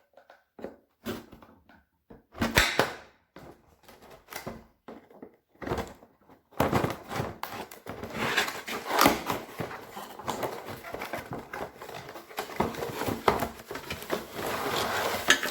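Ring light packaging being handled and unwrapped: scattered clicks and knocks at first, then from about six seconds in a continuous rustling with sharper crackles.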